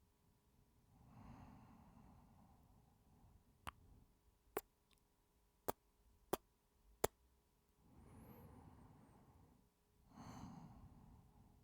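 A man's slow, heavy breaths and sighs close to the microphone, three long exhalations in all. Five short, sharp clicks come in a loose row between about four and seven seconds in.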